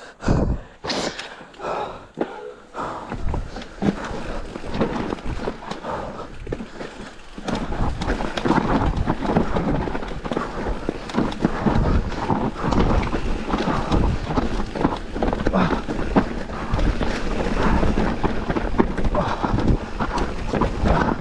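Specialized Turbo Levo e-mountain bike descending a rough trail: tyres rolling over dirt with many short knocks and rattles from the bike over bumps, getting louder and busier about seven seconds in.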